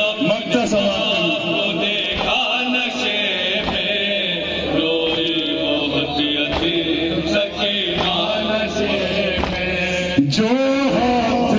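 Voices chanting a slow noha (Shia mourning lament) in long, wavering held notes with no clear words, the pitch swooping upward about ten seconds in.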